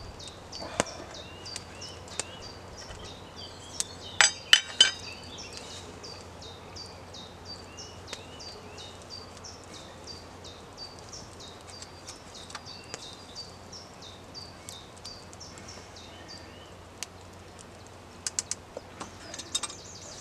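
Metal billy can and its lid clinking as the lid is handled and lifted off, with a cluster of sharp clinks about four seconds in and more near the end. Behind it a small bird repeats a short falling chirp about twice a second.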